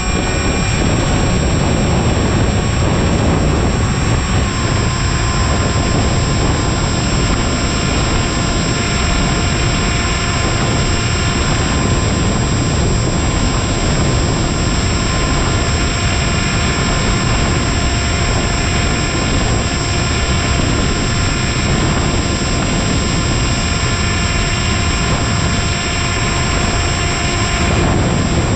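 Electric motor and propeller of a HobbyZone Aeroscout RC plane in flight, recorded from a camera on the plane: a steady whine of several tones over heavy wind rush on the microphone. The pitch shifts slightly about four seconds in.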